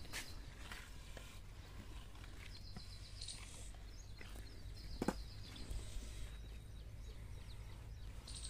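Quiet farmyard ambience: a low steady rumble, faint high chirps, and a few soft knocks, the clearest about five seconds in.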